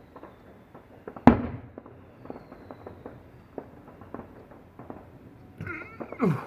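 Fireworks display heard through an open window: one loud bang about a second in, echoing away, over scattered small crackling pops, with another burst of noise near the end.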